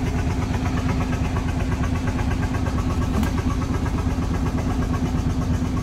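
Fishing boat engine idling steadily, a fast, even low chugging with a constant hum, and one short click about three seconds in.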